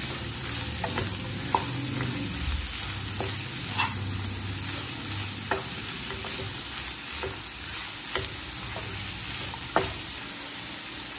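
Shredded cabbage with carrot, peas and onion sautéing in a nonstick kadai with a steady sizzle, while a spatula stirs and turns it, making scattered light clicks against the pan.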